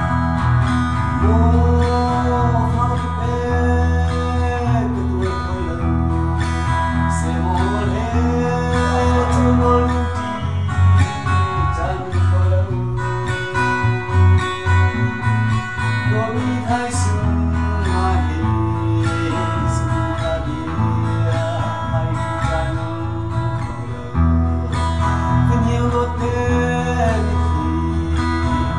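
Two acoustic guitars playing together, strummed and picked, with a man singing a slow melody over them.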